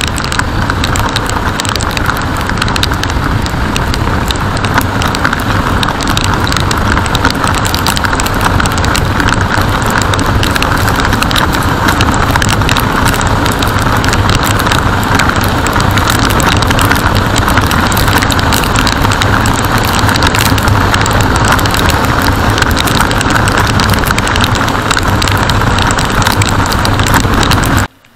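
A motorcycle being ridden in the rain: a steady, loud rush of wind and engine on a mounted camera's microphone, with constant crackling. It cuts off suddenly near the end.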